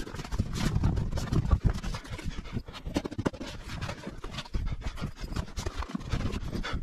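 Plywood floor panels being fitted into a PVC inflatable boat: irregular knocks, scrapes and rustling as the boards are pushed against each other and against the hull, over a low rumble.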